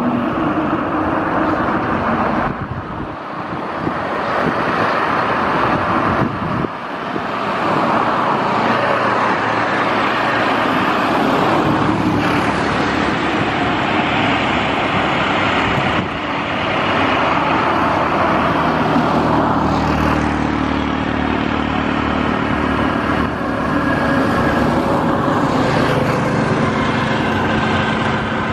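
Bombardier Dash 8 Q400 running its twin Pratt & Whitney PW150A turboprops while taxiing: a steady, loud propeller and engine drone. The drone dips briefly about three and six seconds in, and steady tones come through in the second half.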